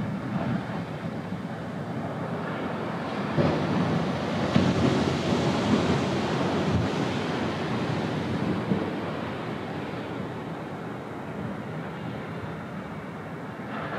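Pacific Ocean surf breaking on a sandy beach: a wave crashes and its foam washes up the shore in a steady rushing noise. The noise swells about three seconds in and eases off over the second half.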